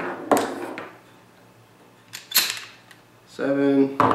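Two sharp metal clacks about two seconds apart from a Mossberg 500 pump-action shotgun as it is unloaded of Aguila 12-gauge mini shells. A short hummed voice comes near the end.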